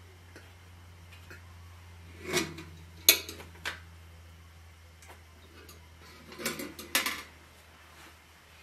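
Metal clinks and clatters as a metal pot lid and the metal top of a portable kerosene stove are handled: a sharp clink about three seconds in, another cluster of clinks near seven seconds, over a faint steady low hum.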